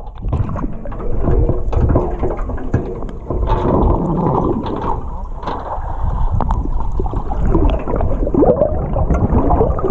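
Muffled water noise heard underwater: bubbles gurgling and water churning around swimmers in a metal shark cage, with scattered sharp knocks.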